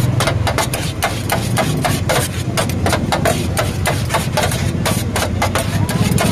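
A knife and a spatula clacking rapidly against a flat metal griddle as shawarma chicken and vegetables are chopped and mixed, about five strikes a second, over a steady low hum.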